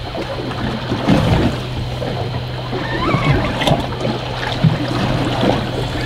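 Waves splashing and slapping against a boat's hull, over a steady low hum.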